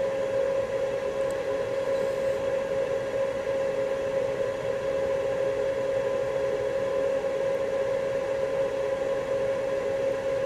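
A steady machine hum from electrical bench equipment running continuously, with a constant mid-pitched whine over a low hiss.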